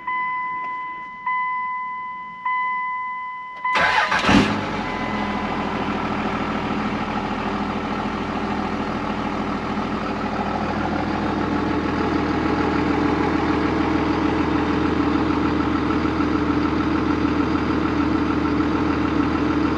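A truck's warning chime dings steadily at about one ding a second, then the 2001 Dodge Ram 2500's 5.9-litre 24-valve Cummins diesel cranks and fires about four seconds in and settles into a steady idle.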